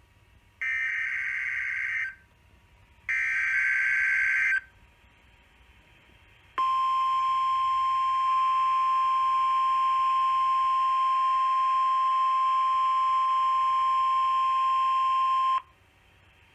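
NOAA Weather Radio emergency alert signal for a tornado drill: two short SAME digital header data bursts, then after a brief gap the steady single-pitch 1050 Hz warning alarm tone, held for about nine seconds before cutting off.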